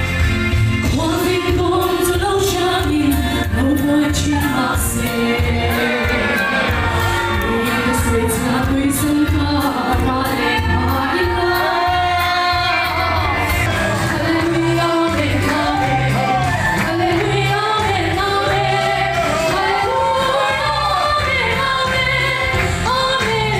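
Congregation singing a lively worship song over a steady drum beat, led by a woman's voice through a microphone.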